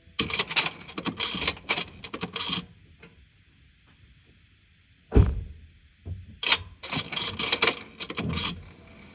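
Honda i-DCD hybrid's seven-speed dual-clutch transmission clattering: two rapid runs of mechanical clicks and clunks, with a single low thump in between.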